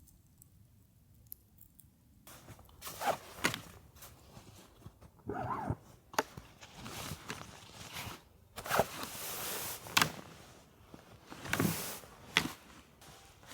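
A series of rustles, knocks and thuds starting about two seconds in, with a short wavering squeak about five seconds in.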